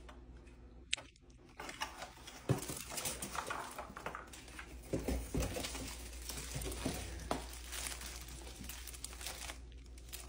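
Cardboard shipping box being handled and opened: irregular rustling, crinkling and light knocks of cardboard and packaging.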